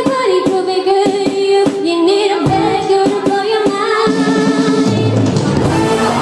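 Live band music, a woman singing long held notes that slide between pitches into a microphone over drums and backing instruments.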